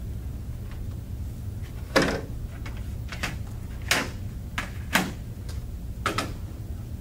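Computer keyboard being lifted, shifted and set back down on a desk: about six sharp knocks and clicks, the loudest about two seconds in, over a steady low hum.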